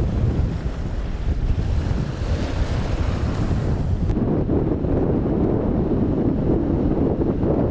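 Strong wind buffeting the microphone over rough sea and surf. About four seconds in, the sound changes abruptly: the high hiss falls away and a heavier rumble takes over.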